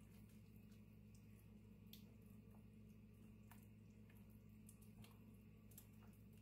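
Near silence over a low steady room hum, with faint wet squelches and a few scattered soft clicks from a wooden spoon stirring thick waffle batter in a glass mixing bowl.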